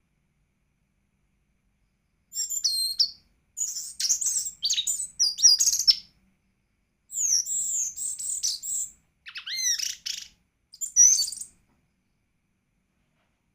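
Songbird song in about five quick bursts of rapid, varied, high twittering and sliding notes, separated by short pauses.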